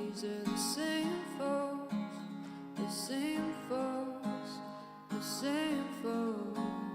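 Solo voice singing a song over acoustic guitar accompaniment.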